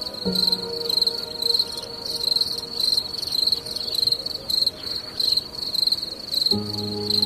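Cricket chirping: short high-pitched chirps at one steady pitch, repeating about twice a second.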